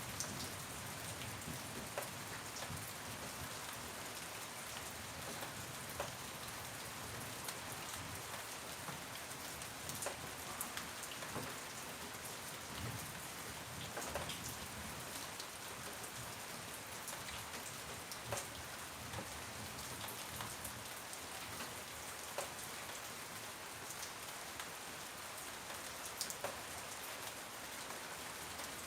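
Steady rain falling: an even hiss with scattered louder drops ticking on a surface.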